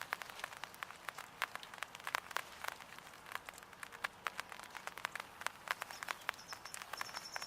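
Raindrops pattering on an umbrella held over the camera: many irregular, sharp ticks. A faint, high, thin bird call comes in near the end.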